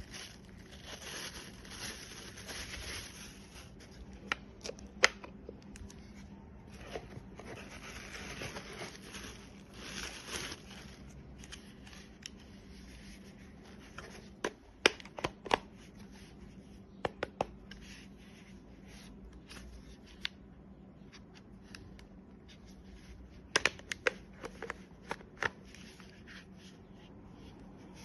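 Handling noises: stretches of rustling with scattered sharp clicks and taps, some in quick clusters.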